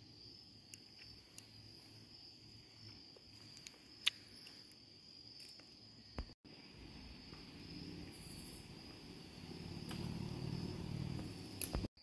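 A faint, steady high-pitched insect chorus, with a few soft clicks. A low rustling builds over the last few seconds.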